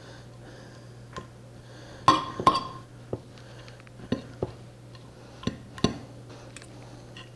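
Two metal forks clinking and scraping on a ceramic plate while shredding tender cooked chicken: scattered sharp clinks about once a second, the loudest pair about two seconds in with a brief ring. A faint steady hum runs underneath.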